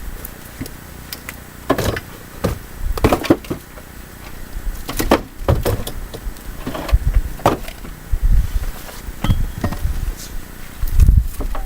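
Axe chopping firewood by hand: a series of sharp strikes into wood, irregularly about one to two seconds apart.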